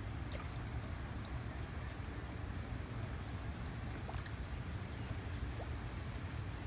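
Steady rain falling on open water, an even hiss with a low rumble underneath and a few sharp drop ticks, one about four seconds in.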